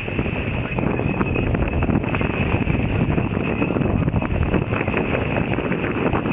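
Wind buffeting the microphone aboard a sailboat under way, a steady loud rumble with many small ticks through it.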